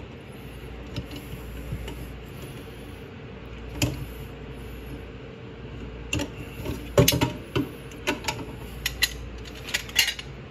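Light metal clicks and taps of a garbage disposal's snap ring and metal mounting assembly being pried off the sink flange, scattered, with a quick cluster about seven seconds in and more near the end.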